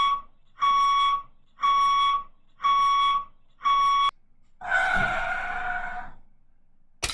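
Vehicle reversing alarm beeping steadily, about one beep a second, five times. It is followed by a louder, sustained sound of about a second and a half with a couple of tones in it.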